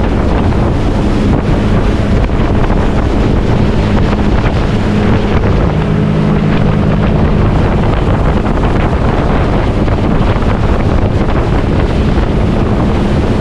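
Motorboat under way: its engine runs with a steady low hum under heavy wind buffeting the microphone.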